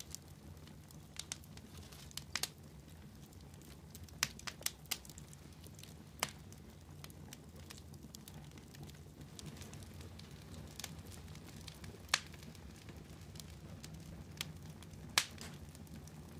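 Wood fire burning down to glowing embers, crackling with scattered sharp pops, a dozen or so spread irregularly, over a faint low steady hum.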